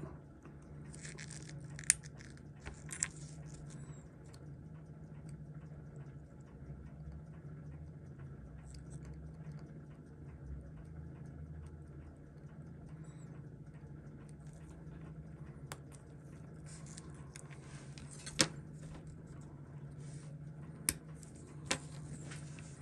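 Faint sharp clicks and light metallic clinks of steel tweezers and small watch parts touching the movement and its holder during disassembly, a few of them spaced seconds apart, over a steady low hum.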